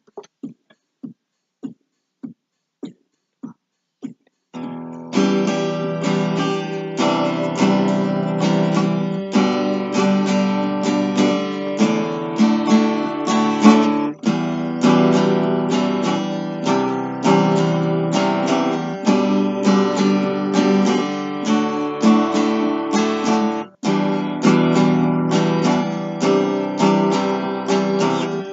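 A count-in of evenly spaced clicks at about 80 beats a minute, then an acoustic guitar strumming chords in the campfire rhythm at tempo 80, breaking off briefly about 24 seconds in.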